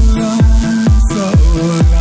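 Electronic dance music with a steady kick drum about twice a second under held synth tones.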